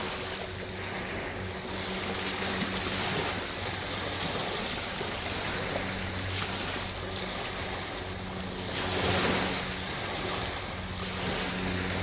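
Steady low drone of a boat engine over the wash of river water and wind on the microphone; the rush of wind and water swells louder about nine seconds in, and the engine hum grows stronger near the end.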